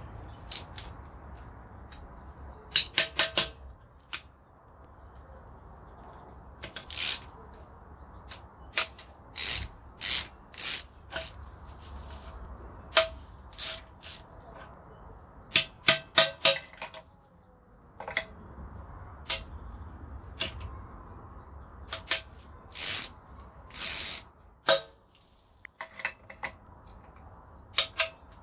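Ratchet wrench clicking in short irregular runs, with metallic tool clicks, as the hex-socket bolts of an Audi 4.2 V8 oil pan are loosened.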